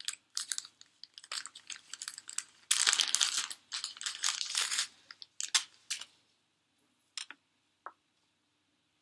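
Small clear plastic bag crinkling and rustling in quick bursts as a necklace is worked out of it, loudest about three seconds in. It dies away about six seconds in, leaving a few faint ticks.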